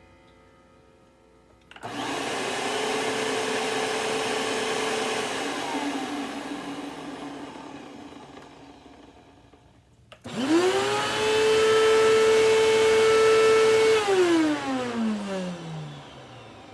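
Two upright vacuum cleaners, one a Hoover WindTunnel bagless, are run one after the other. The first switches on about two seconds in, runs steadily for a few seconds, then slowly winds down. The second starts about ten seconds in with a quick rising whine, runs steadily, and is switched off near the end with a falling whine. The owner takes the newly bought Hoover's motor for a dry one.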